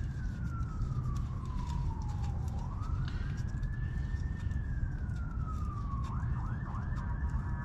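An emergency vehicle's siren wailing, its pitch rising and falling slowly, then switching about six seconds in to a fast repeated yelp, over a steady low rumble.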